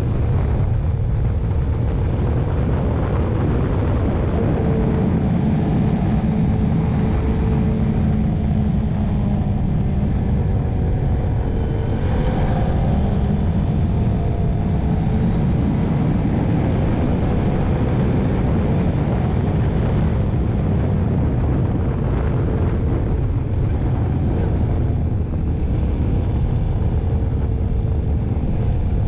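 Motorcycle engine running while riding, with heavy wind noise on the microphone; its pitch drifts up and down with the throttle.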